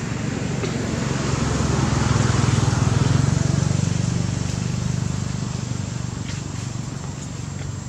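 Low engine sound of a passing motor vehicle, growing louder to a peak about three seconds in and then fading away.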